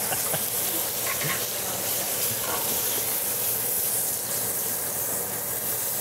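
Butter and steak juices sizzling steadily in a hot cast iron skillet around a bone-in ribeye.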